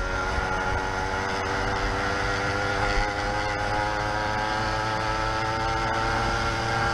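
YD100 two-stroke motorized-bicycle engine with a window piston running steadily, its pitch creeping up slightly.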